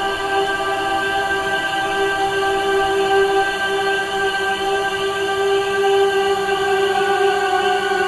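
Background music: sustained, held choir-like vocal tones forming a slow ambient drone.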